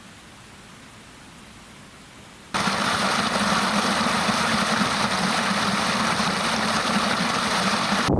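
Waterfall's rushing water, a steady roar, faint at first and then suddenly much louder about two and a half seconds in, where one shot gives way to another closer to the falls.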